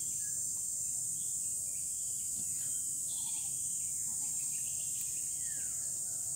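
Steady high-pitched drone of an insect chorus, with scattered faint bird chirps.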